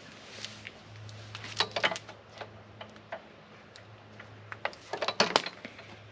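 Scattered sharp clicks and knocks of handling, strongest in two clusters about one and a half and five seconds in, over a faint steady low hum. No saw motor is running.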